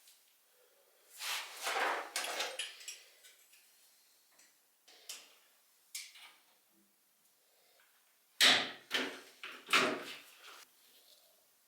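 Intermittent knocks, clatter and scraping from hands-on work: a cluster of rubbing and clatter about a second in, a few light clicks midway, and two louder solid knocks near the end.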